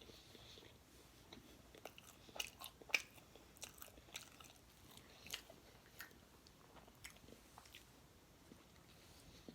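Close-up mouth sounds of someone biting and chewing fried food (fries and fried sausage): faint, irregular wet clicks and crunches, loudest about three seconds in.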